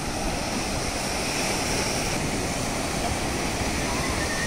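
Sea surf breaking on the beach: a steady, even rush of waves, mixed with wind noise.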